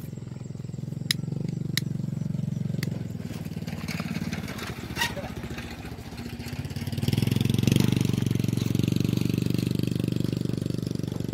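Small motorcycle engine running nearby, swelling louder twice, most of all about seven seconds in, with a few sharp clicks in the first half.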